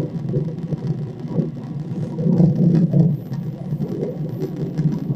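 Low, continuous vehicle-like rumble that swells and fades, played back from a recording.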